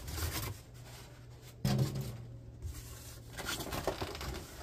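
Packaging rubbing and scraping as a plastic mini exercise bike is worked out of its white moulded insert and cardboard box, with a sudden louder scrape about a second and a half in.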